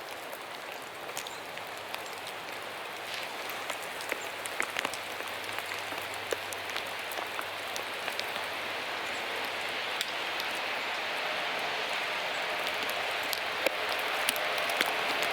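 Steady rain hissing, with scattered drops ticking sharply, growing slowly louder.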